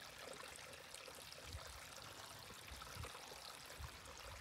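Faint, steady trickle of hot spring water running from a PVC pipe into a rock soaking tub.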